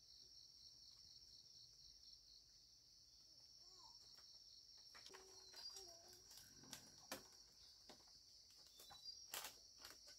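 Faint, steady high-pitched drone of insects, with a few soft bird calls and some light knocks in the second half.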